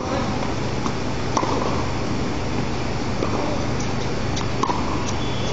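Tennis balls struck by racquets and bouncing on a hard court during a rally: several sharp pops spread over a few seconds, two of them louder, over a steady hiss and low hum.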